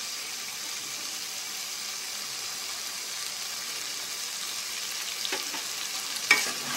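Spiced beef liver and jackfruit seeds sizzling in a pot with a steady hiss: the water has cooked off and the oil has separated, so the masala is frying in its own oil. A spoon clicks against the pot twice near the end.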